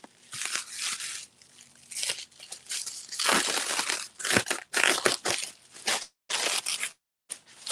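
Bubble wrap and plastic packaging film crinkling and rustling in irregular bursts as it is pulled off and handled, with two brief pauses near the end.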